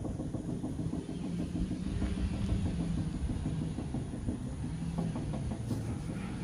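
Steady low rumble of a spinning playground merry-go-round turning on its bearing, with a faint wavering hum and a few soft knocks.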